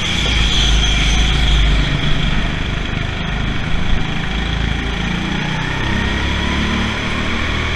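Indoor rental go-kart engine running at speed, heard from on board the kart: a steady, loud low rumble.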